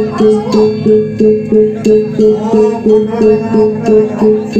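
Traditional ceremonial music with a steady beat of about three strokes a second over a held low tone, with high ringing metallic notes above.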